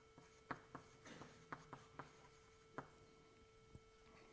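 Faint chalk writing on a chalkboard: a run of short taps and scrapes as the letters go down, stopping a little under three seconds in.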